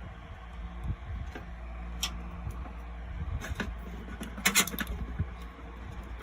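Clicks and light knocks from PC parts and cables being handled and fitted, with a quick rattle of clicks about four and a half seconds in, over a low steady hum.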